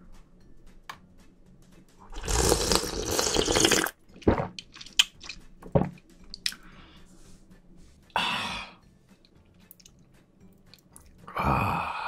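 Mouth sounds of a person eating spicy seafood stew broth from a spoon, picked up close: a long slurp about two seconds in, then small wet mouth clicks, a shorter slurp about eight seconds in, and a breathy vocal sound near the end.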